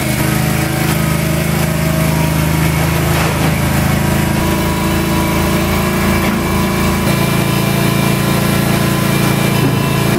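John Deere garden tractor engine running steadily just after being started.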